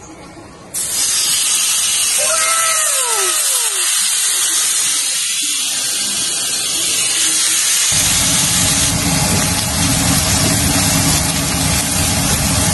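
Beef steak sizzling in a hot grill pan: a loud, even hiss that starts abruptly about a second in as the first piece is laid down with tongs, and grows fuller and deeper about two-thirds of the way through as more pieces go in.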